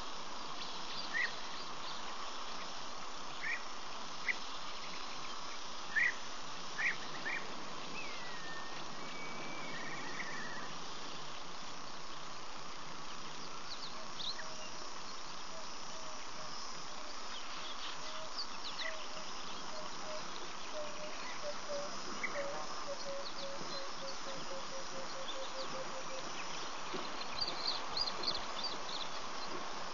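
Steady drone of insects with scattered short bird chirps. About halfway through, a long run of repeated low notes speeds up into a quick even series. A few soft knocks come near the end.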